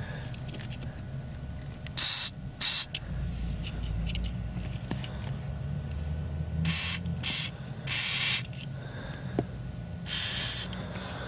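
Aerosol can of WD-40 spraying in six short hissing bursts, the longest about half a second, as it lubricates a Lada Granta's clutch pedal linkage and pivots to cure a squeaking pedal.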